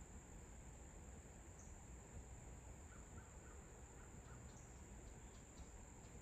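Faint pond-side ambience: a steady high-pitched insect drone, with a short run of soft chirps about halfway through and a low rumble beneath.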